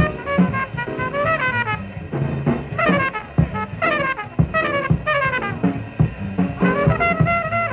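Bebop jazz combo playing live: a horn solos in fast runs of notes sweeping up and down over bass and drums. It is an old broadcast recording with no high treble.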